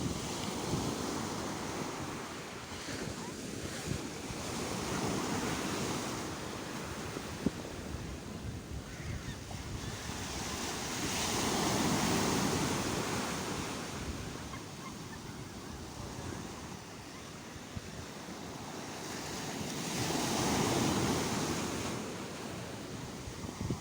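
Sea waves breaking and washing in. The surf swells and fades, rising to two loud peaks about nine seconds apart, around the middle and near the end.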